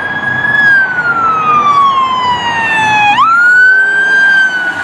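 Police car siren wailing loudly: a high held tone that slides slowly down in pitch, then sweeps quickly back up about three seconds in and holds high again.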